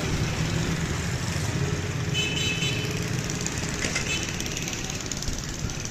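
Street traffic: a vehicle engine, likely a motorcycle's, runs steadily close by, with a brief horn beep about two seconds in.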